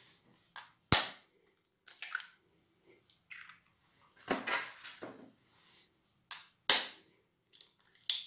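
Raw eggs being cracked open into a pot: a sharp knock of shell on a hard edge about a second in and another nearly six seconds later, with softer clicks and rustles of shell between them.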